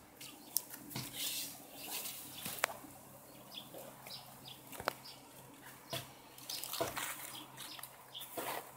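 Irregular rustling and scattered sharp clicks close to the microphone: handling noise and movement through leaves and grass.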